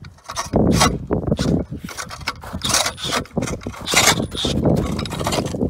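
Red spiral ice auger turned by a power drill, its blades scraping and grinding through the pond ice in uneven bursts.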